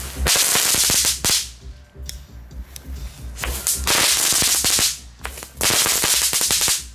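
Crazy Ball crackling-ball firework going off on the ground: three loud runs of dense rapid crackling, each lasting about one to one and a half seconds, with short lulls between.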